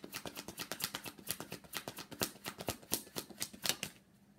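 Tarot deck being shuffled by hand: a rapid run of card clicks, about seven a second, that stops shortly before the end.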